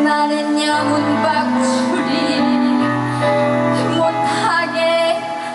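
Live music: an instrumental passage of sustained chords over a bass line that moves between long held notes.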